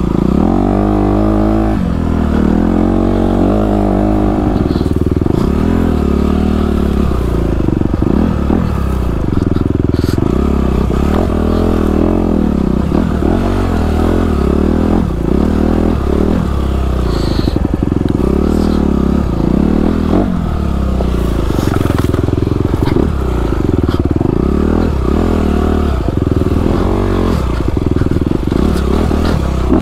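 Dirt bike engine under load on a steep, rocky hill climb, revving up and down over and over as the throttle is worked.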